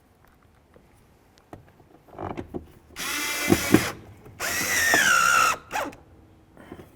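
Power drill/driver running in door-panel mounting screws: two short runs of the motor, about a second each, the whine of the second falling in pitch near its end.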